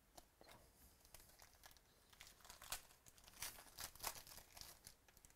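Foil wrapper of a trading-card pack crinkling and tearing as it is pulled open by hand: a string of quiet crackles, densest about three to four seconds in.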